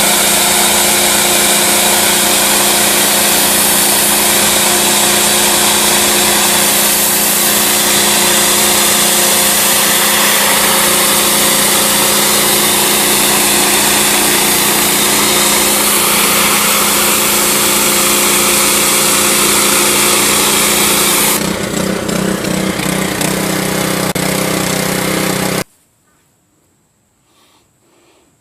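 Pressure washer's Honda GC190 single-cylinder four-stroke engine running steadily under load while the high-pressure water jet hisses against siding. The spray stops about three-quarters of the way through and the engine runs on alone, then the sound cuts off suddenly near the end.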